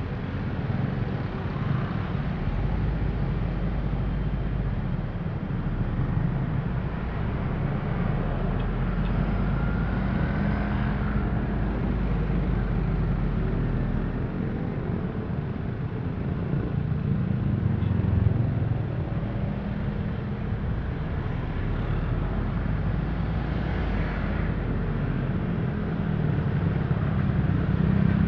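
Dense city traffic heard from within the flow: a steady low rumble of motorcycle and car engines and tyres, with a brief rising whine about ten seconds in.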